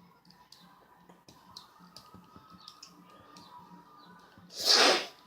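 Scattered light clicks and taps, then one loud, short breath noise from a person near the end, like a sniff.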